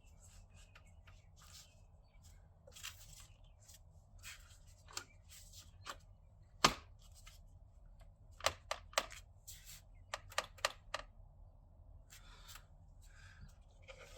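Scattered light clicks and knocks of parts being handled during work on a Subaru WRX's top-mount intercooler and charge pipe, with one sharper knock about halfway through and a quick run of clicks soon after.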